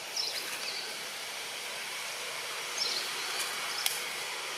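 Outdoor ambience: a steady hiss, a few short high chirps about half a second in and again near three seconds, and a single sharp click near the end.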